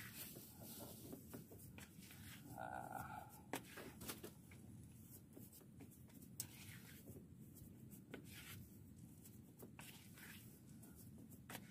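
Near silence with faint rubbing and scattered soft clicks of hands kneading a wetted fishing bait dough in a bowl, and a brief faint tone about two and a half seconds in.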